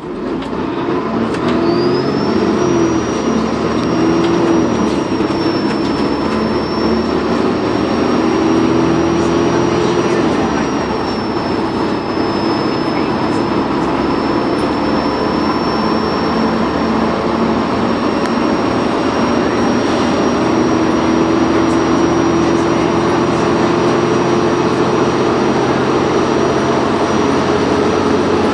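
Dennis Trident 2 double-decker bus's diesel engine pulling hard under load. Its turbocharger whistle rises about a second in, then holds as a steady high whine over the engine thrash. The engine note rises and falls as the bus accelerates.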